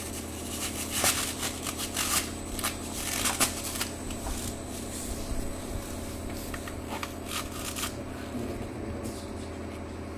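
Irregular clicking and crackling from fingers handling the glass cell and its holder between the electromagnet's poles, thinning out about eight seconds in, over a steady low electrical hum from the electromagnet setup.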